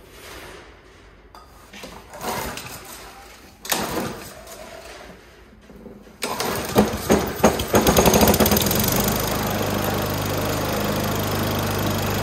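Honda walk-behind lawn mower's single-cylinder four-stroke engine pull-started cold on starting fluid. It catches suddenly about six seconds in, fires with a few sputtering pops, then settles into steady running. Some handling noise comes before it.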